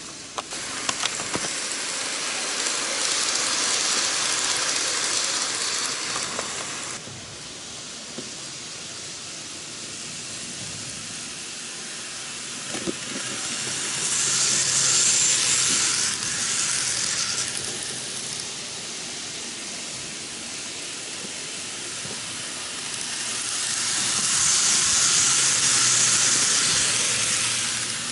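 N-gauge model trains running on the layout track: a steady hiss and rattle of small wheels and motor that swells three times as trains pass close by, with a few sharp clicks over rail joints and points.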